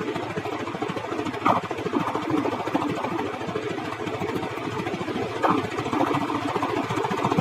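Vehicle engine idling steadily, with a brief louder blip about a second and a half in and again near the end.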